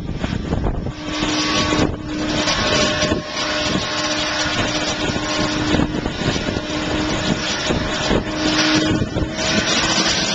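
Boeing 777-200 twin jet engines running as the airliner taxis: a steady rush of jet noise with a faint whine held near one pitch.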